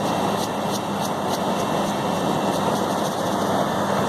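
Walk-in freezer condensing unit running steadily, compressor and condenser fan both on: a constant low hum under the even rush of the fan. The unit has just been restarted after a shorted defrost clock was replaced.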